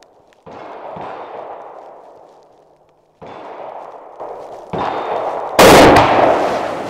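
A Winchester Model 70 rifle in .270 Winchester fires once, offhand, about five and a half seconds in. It is a very loud, sharp crack with a long echo. Before it come fainter reports, each dying away in a long echo, about half a second and three seconds in.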